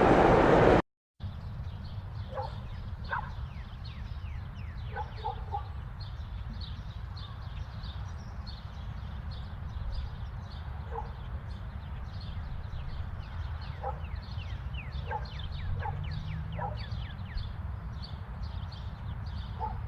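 A loud noisy ambience cuts off within the first second. After a brief gap, an outdoor animal ambience begins: many birds chirping in quick falling notes, short animal calls every few seconds that may be distant dog barks, and a steady low rumble.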